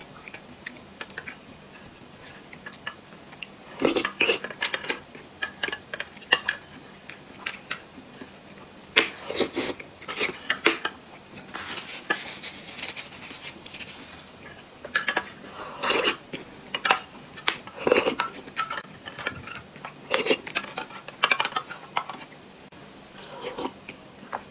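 Close-miked eating sounds: a metal spoon clicking and scraping in a plastic cup of soft jelly, with chewing and mouth sounds in scattered clusters. About halfway through comes a longer papery rustle of a tissue being wiped across the mouth.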